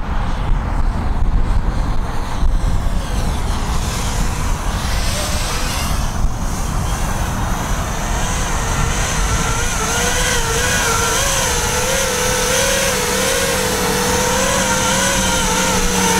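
Wind rumbling on the microphone. From about halfway, an FPV racing quadcopter's motors and propellers whine as it flies in close, the pitch wavering up and down with the throttle.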